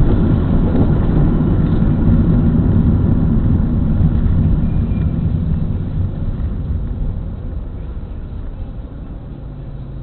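Road and engine noise of a car heard from inside the cabin while driving, easing off over the last few seconds as the car slows to a stop behind a bus at a red light.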